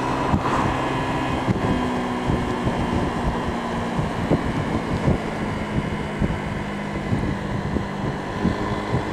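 Honda PCX scooter's single-cylinder four-stroke engine running at a steady cruise, its note holding fairly even, with wind rushing over the microphone.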